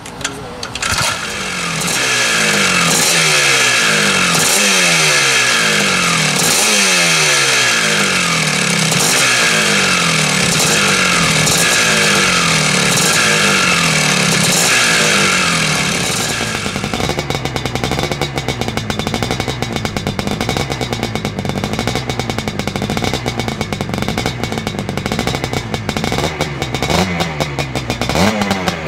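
Vintage Husqvarna 250 two-stroke motocross engine kick-started, catching about a second in and revved in repeated blips of the throttle, each rising then dropping back. About two-thirds of the way in the note changes to a steadier, faster-pulsing engine sound.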